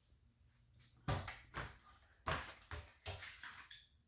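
Metal panic-hardware parts being handled on a work surface: about five light knocks and clatters in quick succession, starting about a second in.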